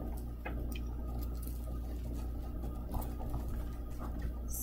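Light rustling and small clicks of a plastic-wrapped photo set being handled, over a low steady hum.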